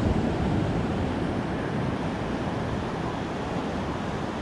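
Ocean surf washing up a flat sand beach in a steady wash, a little louder at the start, with wind on the microphone adding a low rumble.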